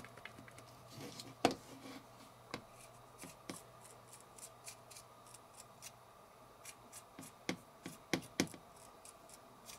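Quiet, scattered clicks and taps of a Daiwa Steez SV TWS baitcasting reel being handled while grease is worked onto its gears, with a sharper click about one and a half seconds in and two more close together near the end.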